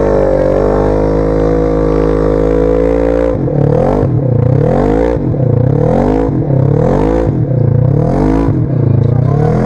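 Side-by-side UTV engine running steadily, then revved in quick repeated bursts from about three seconds in, a little under twice a second.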